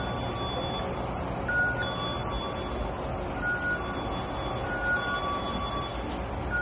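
Busy supermarket ambience: a steady background din with short electronic beeps at two pitches, a higher and a lower one, sounding at irregular moments every second or so.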